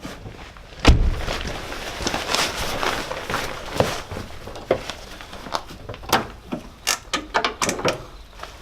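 A heavy thump about a second in, then a run of sharp clicks and knocks, the sound of things being handled.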